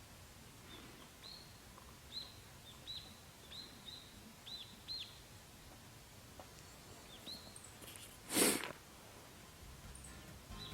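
A small bird calling: a run of short, high, arching chirps about half a second to a second apart, over a quiet outdoor background. About eight and a half seconds in comes one brief, loud burst of rushing noise.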